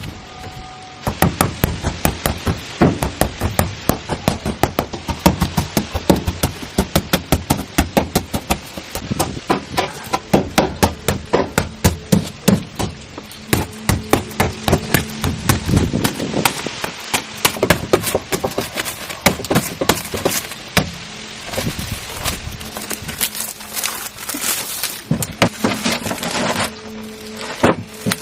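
Rapid, repeated sharp knocks, about two to three a second, thinning out in the last few seconds as a steady low hum comes in.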